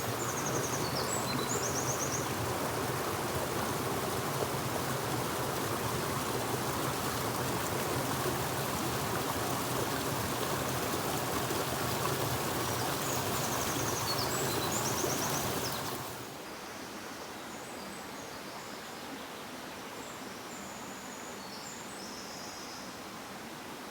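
A forest stream running steadily, with short high bird chirps and trills now and then. About two-thirds of the way through, the water sound drops abruptly to a quieter, even hiss while the bird calls go on.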